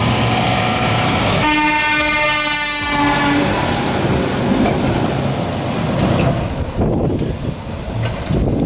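Heavy truck's air horn sounding one steady blast for about two seconds, starting about a second and a half in, over the truck's diesel engine running.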